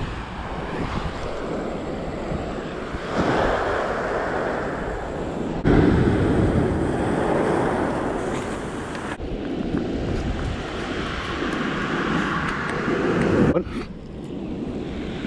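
Wind blowing across the microphone over surf breaking on a shingle beach, a steady noise that jumps louder and quieter abruptly a few times.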